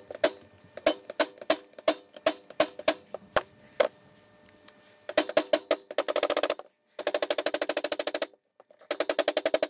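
Hammer striking a steel punch to drive a flattened rivet out of a Ford tractor leveling-box crank handle and gear, each blow giving a sharp metallic ring. Single blows come about one or two a second at first; from about halfway they come in fast strings of many strikes.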